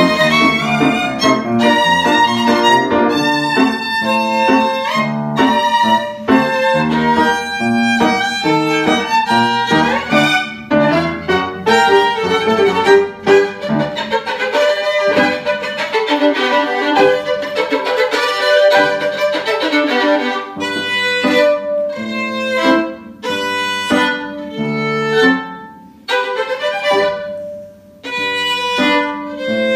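Violin playing a quick-moving melody with upright piano accompaniment, dipping briefly twice near the end.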